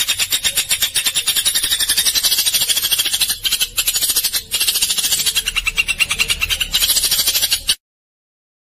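A rapid, dry chattering call made of sharp clicks, about ten a second, bright and high-pitched. It cuts off abruptly about three quarters of the way through, leaving dead silence.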